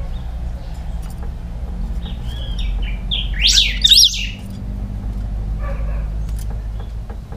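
Caged pica hueso singing: a few soft notes, then one loud phrase of quick rising and falling sweeps about three to four seconds in, and a few faint chirps after, over a steady low rumble.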